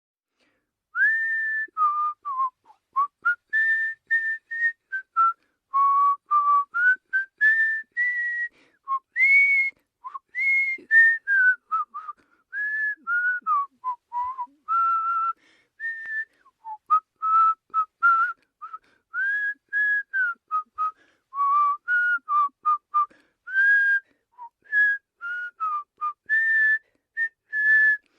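A person whistling a tune: a long run of short, clear notes that slide up and down in pitch, with brief gaps between them. It starts about a second in.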